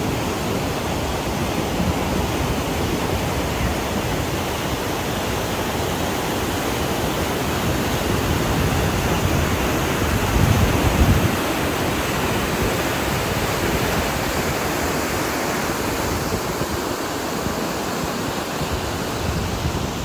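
Steady rushing of a river pouring over a weir, an even wash of water noise, with a brief louder low rumble about ten seconds in.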